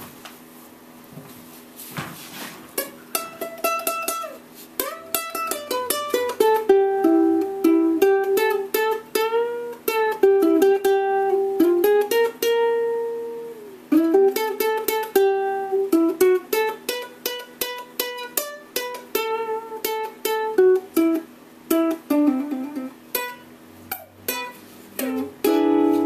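Solo ukulele playing a blues tune, plucked notes and strums that start about two seconds in.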